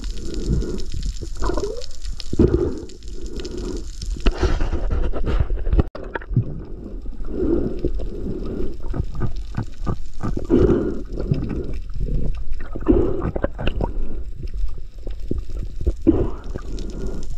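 Water gurgling and sloshing around an underwater camera, a low rumble with irregular swells every second or two.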